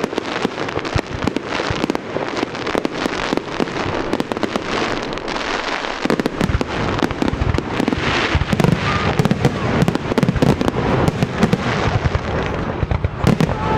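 Fireworks display: aerial shells bursting in rapid succession with dense crackling, the deeper booms growing heavier about six seconds in.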